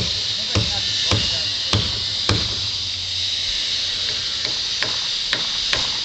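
Hammering, one blow about every half second. It pauses for a couple of seconds in the middle and comes back fainter, over a steady hiss.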